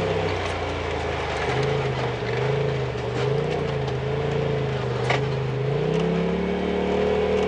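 Small off-road vehicle engine running under way on a dirt trail, its pitch dropping about a second and a half in and climbing again near six seconds as the throttle or gear changes. A single sharp knock comes about five seconds in.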